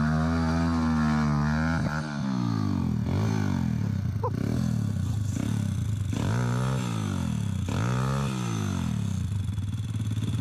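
MRF 140 pit bike's 140 cc four-stroke single revved hard while stuck in deep mud, its rear wheel spinning: held high for about two seconds, then dropping and climbing again several times, settling lower near the end.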